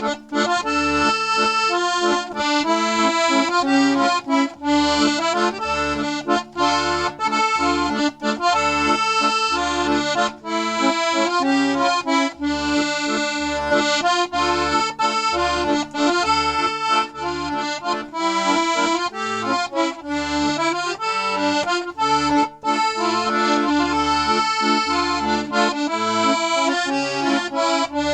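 A freshly restored 72-bass Stefanelli accordion, its reeds newly cleaned, waxed and tuned, playing a folk tune. The melody of held notes runs over a steady, regular bass-and-chord accompaniment.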